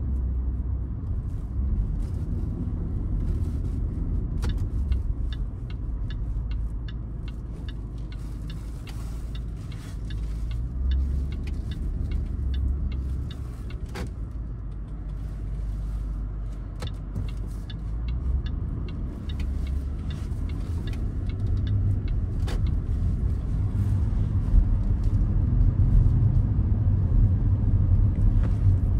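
Cabin sound of a 2013 Range Rover Sport 5.0 V8 being driven: a low engine and road rumble that grows louder near the end. For stretches there is a faint, regular ticking.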